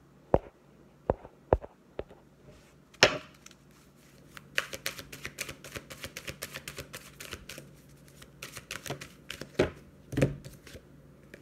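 Deck of oracle cards shuffled by hand over a wooden table: a few sharp single clicks, then a long run of quick dry card clicks and slaps, and two heavier knocks near the end.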